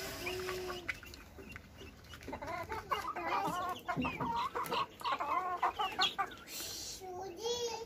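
Chickens clucking and calling, with many short calls in quick succession from about two seconds in to about six seconds.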